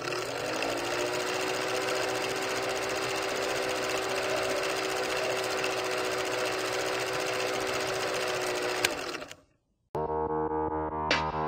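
Old film projector sound effect laid over a countdown leader: a steady whirring rattle with a hum that rises in pitch over the first second and then holds, ending with a click and a quick fade. About ten seconds in, pop music with a beat starts.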